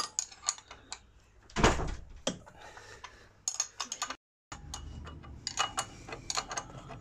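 Metal clicks and knocks of a spanner and a hand-turned nut on the front wheel spindle bolts of a Royal Alloy GP300 scooter, with one louder thump about a second and a half in.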